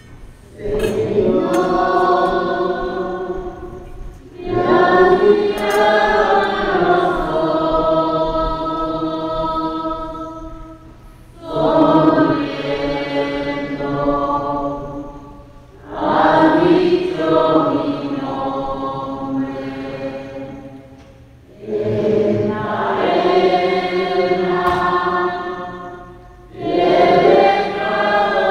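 Choir singing a slow hymn in sustained phrases of a few seconds each, with short breathing pauses between phrases.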